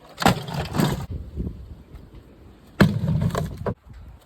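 A mini fridge being smashed: two hard crashing blows with cracking and breaking in the first second, then a longer crash about three seconds in.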